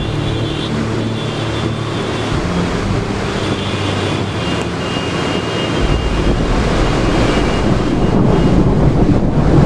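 Strong wind buffeting a microphone: a loud, steady rush with a heavy low rumble that grows louder in the second half.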